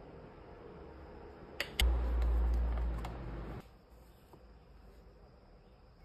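A few sharp clicks and knocks as coffee gear (dripper, server, cup) is handled and set down on a wooden counter, with a loud, deep rumble lasting about two seconds around the middle.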